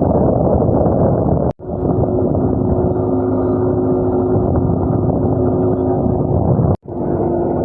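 A motorboat engine runs steadily under heavy wind and water noise, with a steady hum in it. The sound cuts out abruptly twice, briefly each time.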